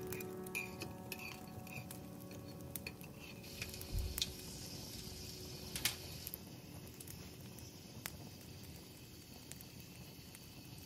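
Small utensils clicking and clinking against a miniature pan, with a few sharp taps and a short hissing stretch a few seconds in.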